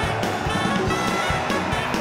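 Instrumental theme music with a steady beat.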